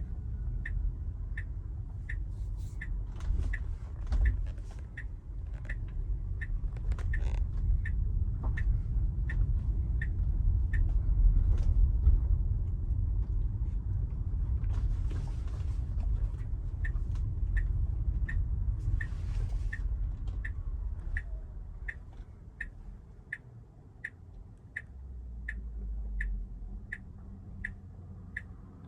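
Tesla Model Y turn-signal indicator clicking about twice a second, heard inside the cabin over low road and tyre rumble; the clicking stops for a few seconds mid-way, and two brief whooshes pass near the middle.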